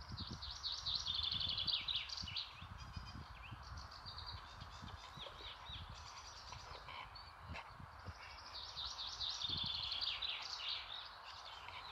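A songbird singing two quick, trilled song phrases about eight seconds apart, with scattered single chirps between them, over steady outdoor background noise and low rumbling on the microphone.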